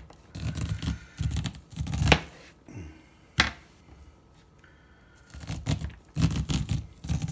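Chef's knife slicing kernels off an ear of fresh white corn held upright on a flexible plastic cutting board: a run of scraping, tearing strokes down the cob as the kernels fall onto the board. There is a pause in the middle, then more strokes, with one sharp knock about three and a half seconds in.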